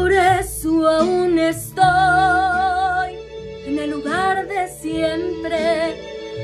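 A young woman singing a Spanish-language ballad in several held phrases with marked vibrato, over an instrumental accompaniment.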